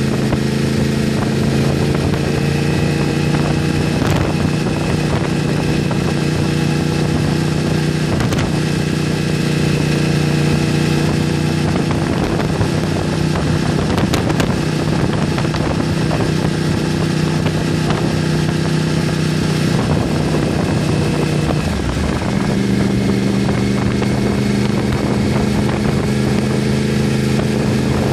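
2013 Yamaha R1's crossplane inline-four engine running through an exhaust fitted with an A&R Motorsports baffle kit, heard from the rider's seat while cruising at a steady speed in third gear. The engine note holds steady, then changes pitch about three-quarters of the way through.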